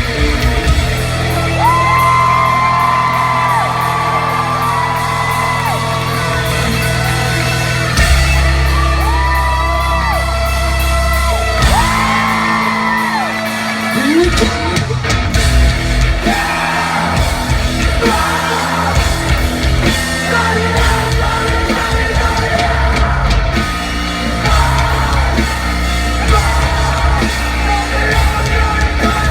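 Rock band playing live in a concert hall: electric guitars, bass and drums under a lead vocalist who yells and sings. The singer holds several long notes in the first half, then the band moves into a denser, choppier section.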